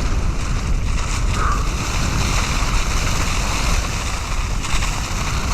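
Wind rushing over the microphone with the mountain bike's tyres rolling through deep dry leaves, a steady rush with no letup.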